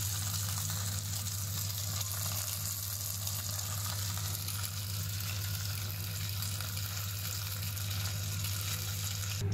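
Goat chops and chicken pieces sizzling in their juices in a grill pan, a steady fine crackle, over a constant low hum.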